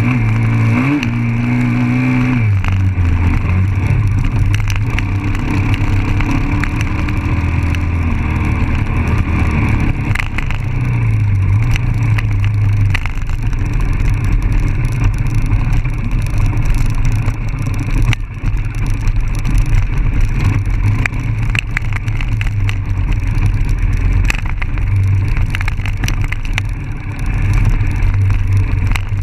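Dirt bike engine heard from a camera mounted on the bike, running under load on a rough trail, its engine speed rising and falling as the rider works the throttle. Scattered sharp knocks from the bike jolting over the rough ground run through it.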